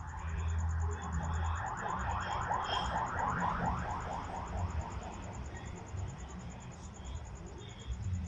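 Night insects chirping steadily in a fast, even high pulse, with a lower pulsed trill that swells and fades over the first half, and a low hum that stops about a second and a half in.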